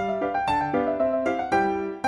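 Background music: a light tune of short, evenly paced notes.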